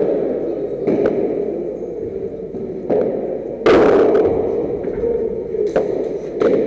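Padel rally: the ball struck by rackets and bouncing, about five sharp hits a second or two apart, each ringing in a reverberant hall, the loudest about three and a half seconds in. A steady hum from the hall runs under them.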